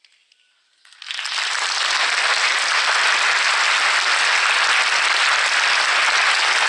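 A moment of near silence, then an audience starts applauding about a second in, quickly rising to steady clapping.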